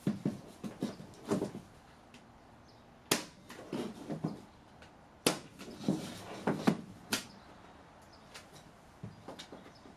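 Nails being driven to fix a wall panel: about a dozen sharp knocks at irregular intervals, some in quick clusters, with short pauses between.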